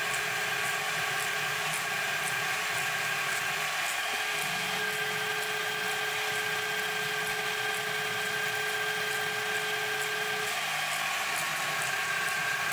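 DMC2 CNC mill cutting 4140 alloy steel with an end mill: a steady high-pitched whine over a hiss, its tone shifting a couple of times.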